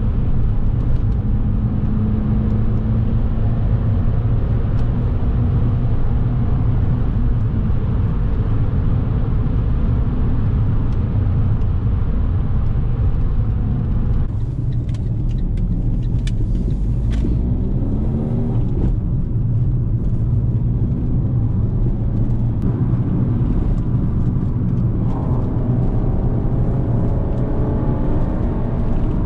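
Fiat Abarth 500 Esseesse's 1.4-litre turbocharged four-cylinder engine running under load as the car is driven, heard inside the cabin. Its pitch rises as the car accelerates, a little past halfway through and again near the end.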